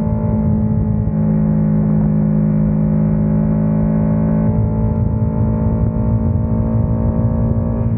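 Kawasaki Ninja 650's parallel-twin engine running through an Ixil RC Black Edition aftermarket exhaust, holding a steady, unchanging engine note.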